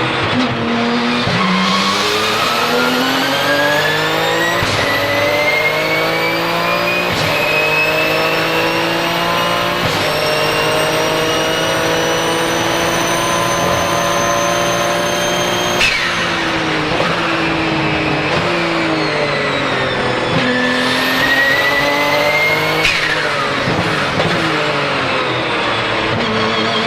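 Porsche 997 GT2 RSR's twin-turbo 3.9-litre flat-six at full throttle, with three quick sequential-gearbox upshifts in the first ten seconds, each dropping the pitch before it climbs again. A high turbo whistle rises steadily over the engine and carries on through the shifts. About 16 s in the driver lifts off and downshifts with falling pitch, then pulls hard again, whistle rising, before lifting sharply about 23 s in and accelerating once more near the end.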